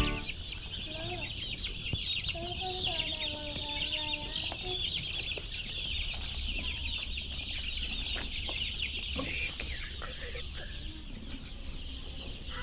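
A flock of poultry-farm chickens clucking, with a few drawn-out calls in the first few seconds, over a dense high chirping that thins out near the end.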